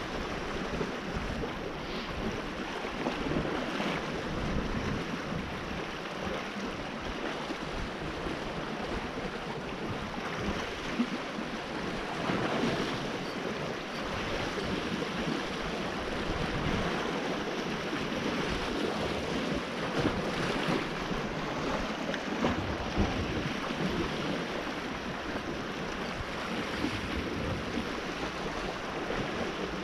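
Sea waves washing against a rocky shore in a steady, swelling noise, with some wind buffeting the microphone.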